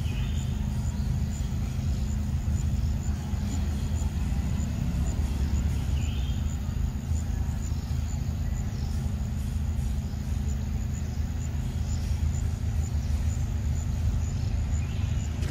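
A steady low rumble, with a faint, even high ticking over it and a few brief high chirps.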